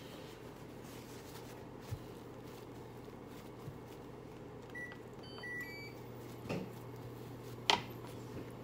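Hands patting and pressing a paper towel down over pineapple pieces on a kitchen counter, with a few soft taps, the loudest near the end, over a steady low hum. A few faint, brief high beeps come in the middle.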